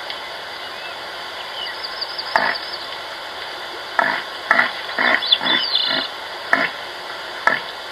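An animal's short grunts, single at first, then coming in a run roughly every half second to a second from about four seconds in, over a steady hiss. A few faint high chirps sound alongside.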